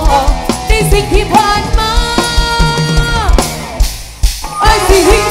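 Live band playing a pop song, with a female singer over drums, electric guitars and keyboard. A long held chord comes about two seconds in, and there is a short break near the end before the band comes back in.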